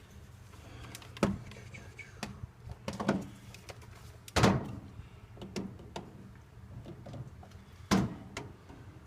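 Scattered knocks and clicks of metal tools and parts being handled inside an open Model T transmission, the loudest about four and a half seconds in, over a faint steady low hum.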